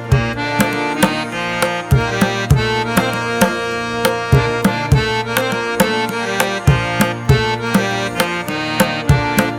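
Background music: percussive instrumental track with a steady drum beat, tabla-like hand drums over pitched melody.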